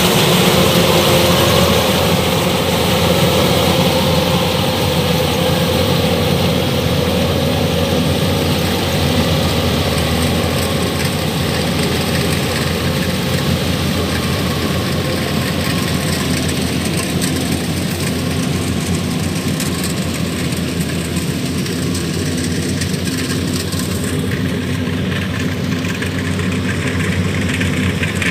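Kubota DC-105X combine harvester's diesel engine running steadily under load while it harvests rice, growing a little fainter as the machine moves away.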